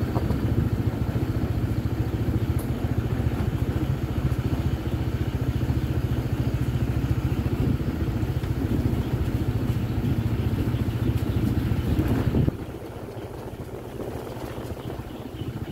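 Motorcycle engine running steadily while riding along a lane. The engine sound falls away sharply about three-quarters of the way through, leaving a quieter hum.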